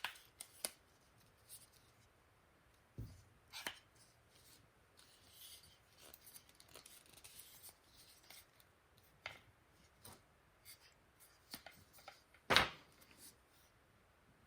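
Hands handling a folding phone gimbal and its packaging: scattered light clicks, taps and soft rubbing, with a dull thump about three seconds in and a louder sharp knock near the end.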